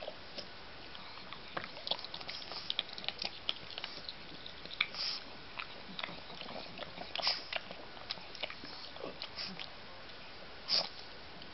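A pug snuffling and sniffing at a treat on the floor, in an irregular run of short, noisy sniffs through its short nose. The loudest come about five seconds in, about seven seconds in and near the end.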